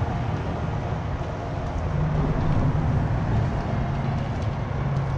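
Steady low rumble of wind buffeting the microphone on an open seawall, with the faint wash of the sea and a few light clicks.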